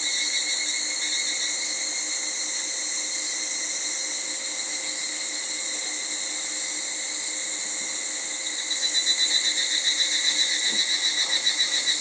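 A chorus of cicadas droning steadily at a high pitch. About nine seconds in, a rhythmic pulsing call joins in and grows louder.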